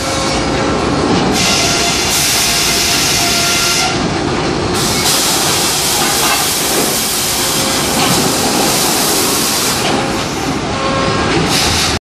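Sawmill machinery running around a live deck log conveyor: a steady dense mechanical clatter. A loud hiss switches on and off several times over it.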